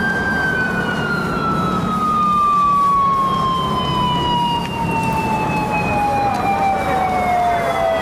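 Police motorcycle siren held at a high pitch, then sliding slowly and steadily down in pitch as it winds down, over a low rumble of engine and road noise.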